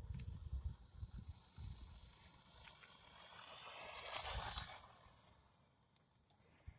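Bezgar 9145 RC truck's ball-bearing 180 brushed motor running flat out on a 3S battery. A high whine swells about three seconds in and fades out by about five seconds, as the truck runs past. Low rumbling underlies the first part.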